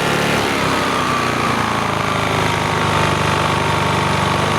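Briggs & Stratton 2000-watt inverter generator running steadily, its engine note dropping slowly in pitch as economy mode brings the engine down to a lower speed.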